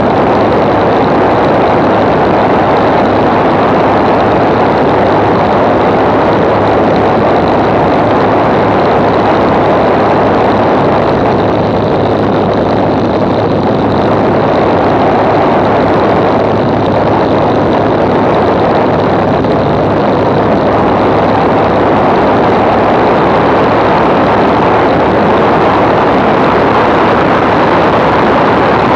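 Six-cylinder Walter Minor engine of a Zlin Z-326 Trener Master running steadily in flight, with its propeller turning. Heavy wind rushes over the microphone and largely masks the engine note.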